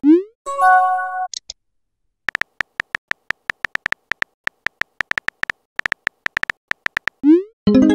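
Synthetic texting-app sound effects. A rising swoosh and a short chime as a message sends, then a quick run of keyboard tap clicks as the next message is typed, and another swoosh and alert tone near the end.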